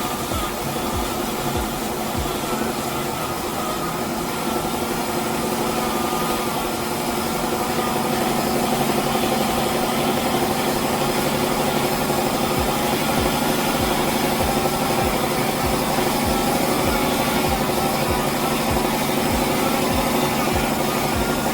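Electric motor and geartrain of a scale 8x8 RC military truck running steadily as it drives, with a steady whine and a regular low pulse, growing louder about eight seconds in.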